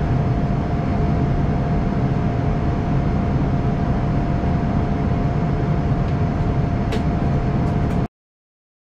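Airliner cabin noise in flight: a steady roar of engines and rushing air with a faint steady hum, cutting off suddenly about eight seconds in.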